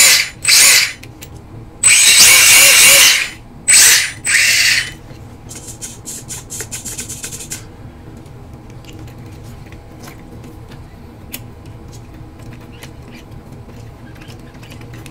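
Small electric motor whirring in several short, loud bursts that rise in pitch, in the first five seconds. A fainter buzz follows, then only a low background.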